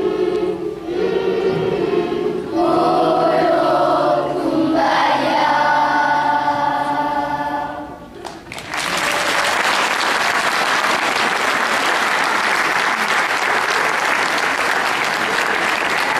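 Children's choir singing, ending on a held chord that is cut off about eight seconds in. The audience then breaks into sustained applause.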